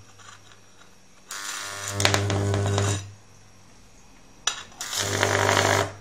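Microwave oven transformer's high-voltage arc buzzing and crackling in two bursts of about two seconds each, over a loud transformer hum; a sharp snap starts the second burst.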